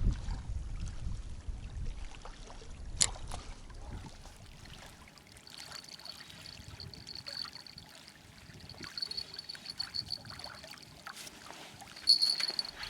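Wind buffeting the microphone, fading after a couple of seconds to softer water lapping and trickling. A single sharp click comes about three seconds in. From about halfway a thin, steady high-pitched tone runs on, louder near the end.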